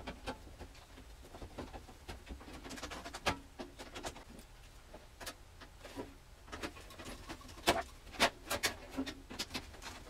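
Irregular sharp clicks and light metal ticks as the new power supply is fastened into a steel desktop computer case with screws and a cordless screwdriver.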